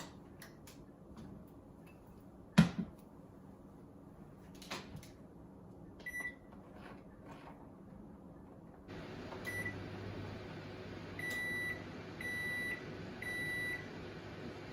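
Microwave oven: handling clicks and a loud knock as the door is shut, a single button beep, then the oven starts running with a steady hum about nine seconds in. While it runs, a short beep sounds and then three longer beeps about a second apart.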